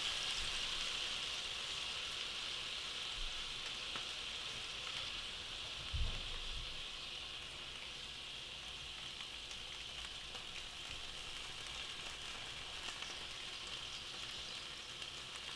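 Balsamic vinegar sizzling in a hot skillet, a steady hiss that slowly dies down. A dull thump about six seconds in.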